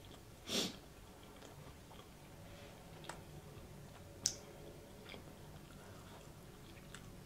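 Quiet close-miked chewing of a soft pretzel bite, with a few small wet mouth clicks. A short sniff about half a second in is the loudest sound.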